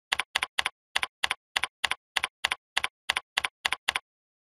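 Computer keyboard typing: evenly paced key clicks, each a quick double tap, about four a second, stopping a little before the end.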